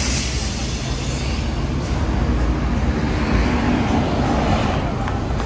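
Road traffic on a busy city street: a steady low engine and tyre rumble, with a large city bus driving past close by about three to four seconds in. A short hiss sounds right at the start.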